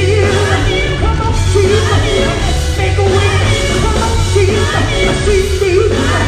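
Live gospel group singing with a full band behind it, a steady bass line under wavering lead and harmony voices.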